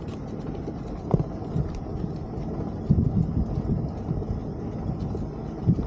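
Open-sided cart rolling along a dirt track: a steady low rumble, with a few thumps as it goes over bumps, about a second in, around three seconds in and near the end.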